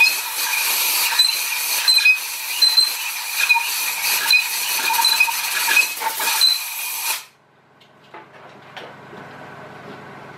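Compressed-air blow gun blasting swarf out of a freshly drilled head-stud hole in an engine block: a loud, whistling hiss that cuts off sharply about seven seconds in. The swarf left at the bottom of the hole had been stopping the drill from reaching full depth. A low steady hum remains after the air stops.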